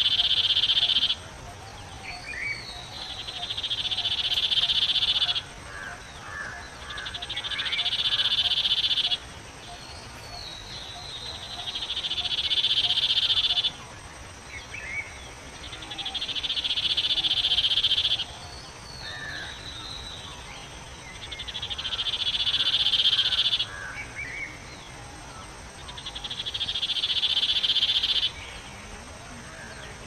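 Common iora (Aegithina tiphia) singing. A long buzzing trill swells for a few seconds and then cuts off sharply, repeating about every four and a half seconds, with short falling chirps in the gaps.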